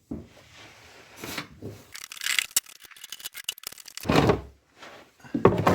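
Workshop handling noises as a drain tray and tools are got ready under a car: a run of light clicks and clatters, then two louder scraping sweeps near the end.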